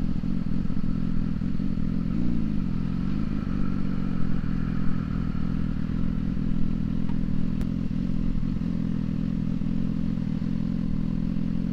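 Motorcycle engine running at low speed, its pitch dipping as the bike slows about two seconds in and then picking back up and holding steady, with an occasional light clatter.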